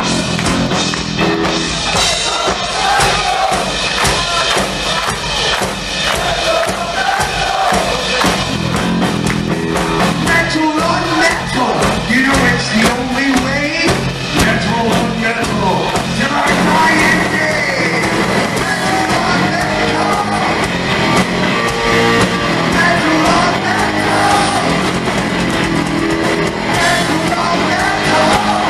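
Heavy metal band playing live, with electric guitar, bass guitar, drums and singing, recorded from within the audience.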